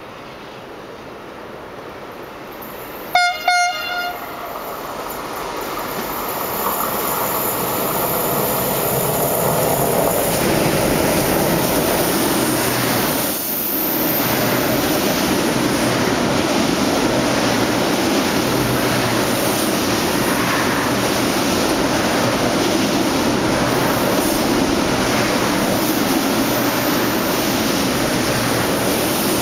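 Electric freight train sounding its horn in two short blasts about three seconds in, then its rolling noise growing louder as it approaches and staying steady as the long string of semi-trailers on low wagons passes close by.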